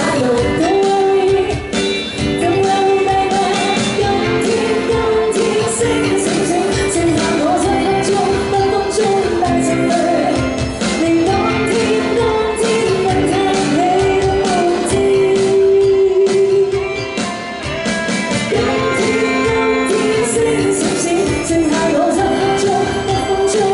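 A woman singing a Cantopop song live into a handheld microphone, over backing music with a steady beat.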